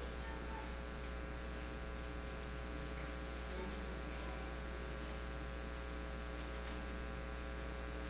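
Steady electrical mains hum from the microphone and sound system, a low buzz of many even tones with no other sound standing out.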